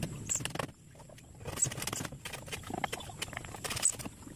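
Scattered light clicks, taps and scrapes of hand work on a small plywood cage, coming irregularly with a brief quieter gap about a second in.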